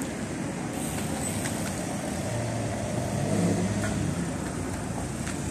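Road traffic: a steady wash of traffic noise with a car engine running close by, loudest about halfway through.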